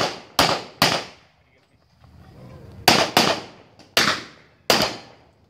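Gunshots fired on a practical shooting course: three quick shots, a pause of about two seconds, then shots in quick pairs, each crack followed by a short ringing tail.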